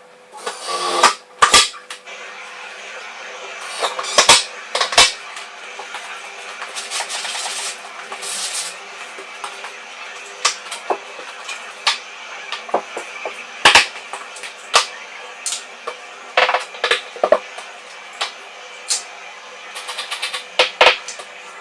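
Irregular knocks and clatters of hard objects being handled and set down, some sharp and loud, over a faint steady hum.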